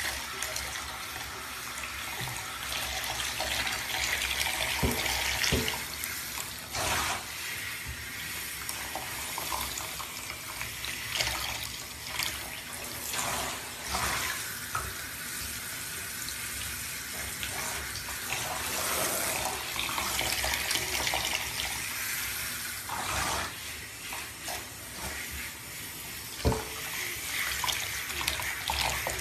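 Water spraying from a handheld shower head into a bathtub, the hiss swelling and dipping as the spray moves. A few sharp knocks, the loudest near the end.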